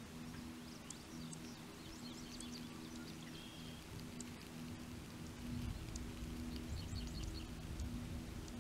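Field ambience: scattered faint bird chirps over a low wind rumble, with a steady low hum underneath.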